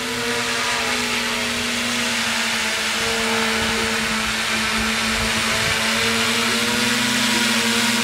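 Homemade cardboard multirotor's DYS D3530 brushless motors spinning 10-inch propellers in flight: a steady electric buzz with a held pitch that slowly grows louder as the craft comes closer.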